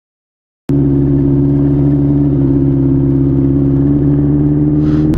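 Benelli TNT600's inline-four engine running steadily at low revs, its pitch easing down slightly. It starts abruptly about three-quarters of a second in, after a short stretch of silence.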